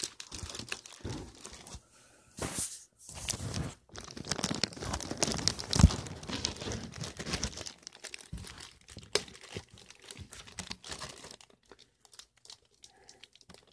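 A plastic bag crinkling and tearing as it is pulled open by hand, in irregular bursts of rustling that thin out near the end.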